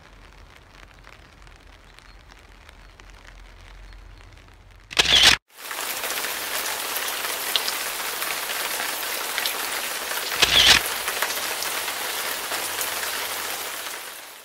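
Heavy rain falling: a steady hiss of dense patter, lighter and ticking for the first few seconds, then much louder after a brief break about five seconds in. Two short loud bursts of noise stand out, about five seconds in and again near ten and a half seconds.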